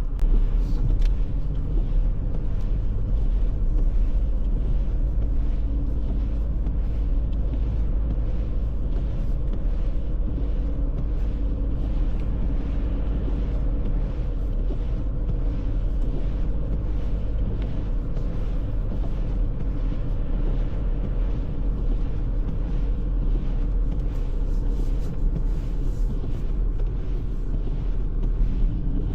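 Car driving along a snowy road: a steady low rumble of engine and tyres.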